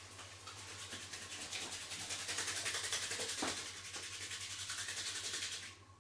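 Hands rubbing briskly back and forth over a person's body in a friction massage, many quick even strokes a second, stopping abruptly shortly before the end.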